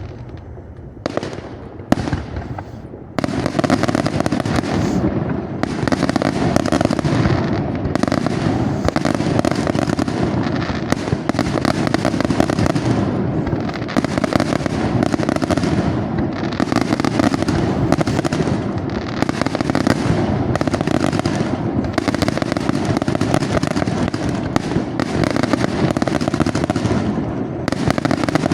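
Aerial fireworks display: a few separate bangs in the first three seconds, then a dense, continuous barrage of rapid bangs and crackling.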